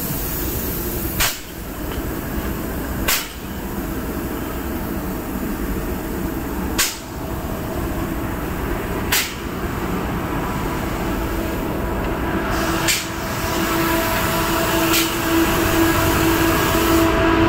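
Steady, dense machinery noise from compressed-air spray and blasting equipment and a ventilation fan, with a hum that grows stronger in the last few seconds. Brief clicks with short drops in level break it about six times.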